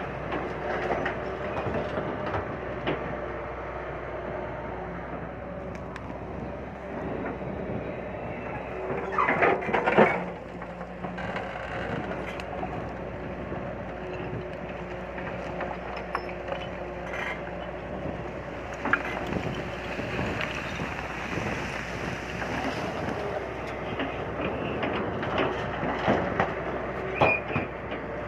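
Hyundai crawler excavator's diesel engine running steadily under load, with clatter and thuds of earth and stones spilling from its bucket as it digs and dumps. The loudest clatter comes about ten seconds in, with a few sharper knocks near the end.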